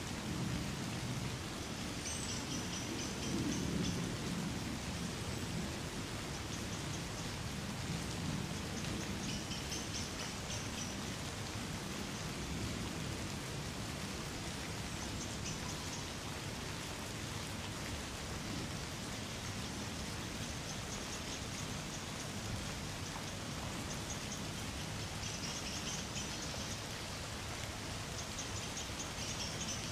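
Light rain falling on trees, a steady patter of drops. Faint, high, rapid trills come back every few seconds, and a low rumble sits under the rain in the first few seconds.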